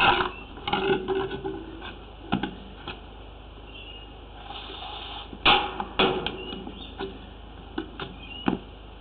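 Irregular knocks, scuffs and rubbing as a drain hose is handled and work boots shift on a wet tiled floor, close to the microphone. The loudest knock comes about halfway through.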